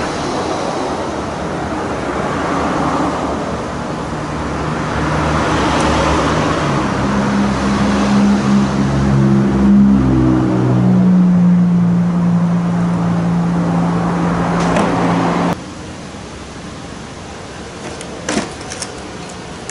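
Loud steady running of a motor or engine, its hum shifting in pitch a few times, cutting off suddenly about three-quarters of the way through. A few light metallic clinks of hand tools follow near the end.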